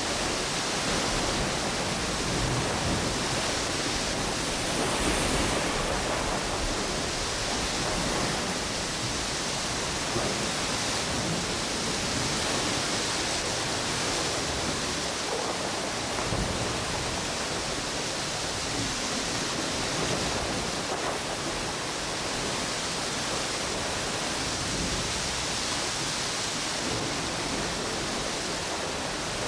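Steady rush of storm wind and ocean waves, swelling slightly about five seconds in.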